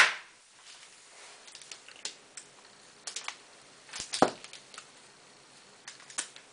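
Hard salt soap bars and a plastic mould divider clicking and tapping as the bars are worked out of the divider, with a firmer knock about four seconds in as a bar is set down on the counter.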